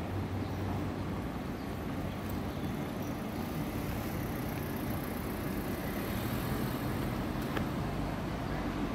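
Steady low rumble of city street traffic and vehicle engines.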